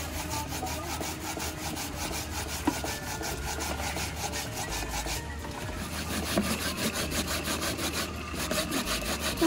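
Small hand grater rasping food onto a plastic plate in quick, even strokes, several a second.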